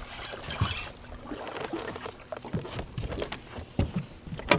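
A hooked largemouth bass being fought to the side of a small fishing boat and landed: scattered splashes and knocks against the boat, with one loud knock about four and a half seconds in as it is grabbed and brought aboard.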